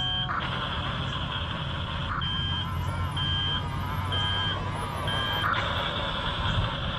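Double E 579 RC bulldozer running, its drive motors and tracks making a steady mechanical noise over a low engine hum, with short high reversing beeps about once a second that stop about five and a half seconds in.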